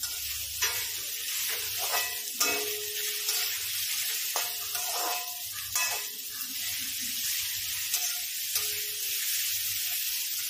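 Chopped onions, green chillies and carrot sizzling in hot oil in a metal kadhai, stirred with a slotted steel spatula that scrapes and clinks against the pan at irregular intervals.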